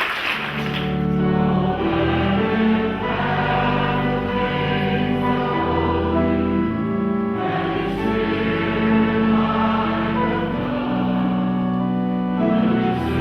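Church music of slow, held chords with low sustained bass notes, sung by a choir, after applause dies away in the first second.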